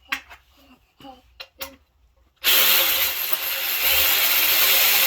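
Cordless battery ratchet starts suddenly about halfway through and runs steadily, spinning out a bolt from an engine block. Before it starts there are a few short knocks.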